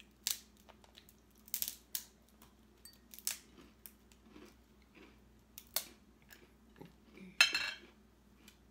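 Crab legs being cracked and snapped apart by hand: a series of sharp cracks a second or so apart, the loudest and longest one near the end.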